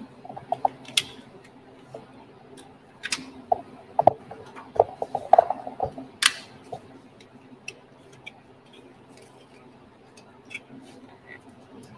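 Irregular clicks, taps and short scrapes of a hand tool working on the starter cart's metal panel, busiest in the middle, over a faint steady hum.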